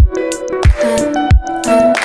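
Background music with a steady beat: a deep drum hit about every two-thirds of a second under held melodic notes.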